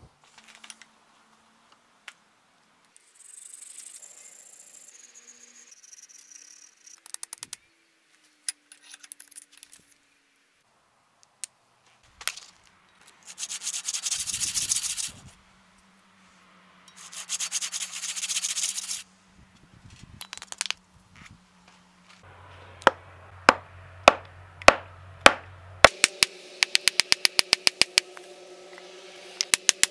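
Hand sanding: two bursts of brisk back-and-forth rubbing strokes, each about two seconds long, in the middle. Later comes a run of loud, sharp knocks about every half second, then faster regular clicking near the end.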